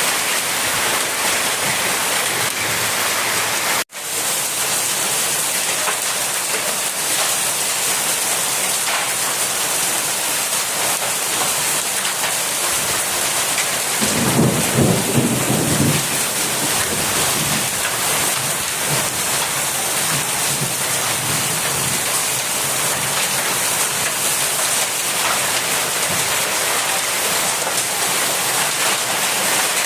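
Very heavy rain pouring down in a thunderstorm, a steady hiss, with a short low rumble of thunder about fourteen seconds in.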